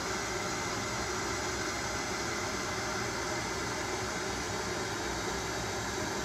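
Steady background hum and hiss of a running fan, even throughout.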